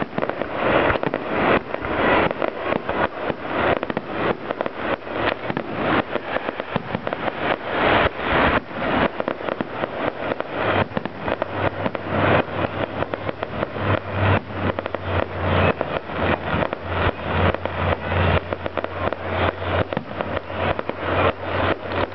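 Fireworks display: a dense, continuous run of shells bursting, many bangs and crackles a second with no let-up. A steady low hum joins in about halfway through.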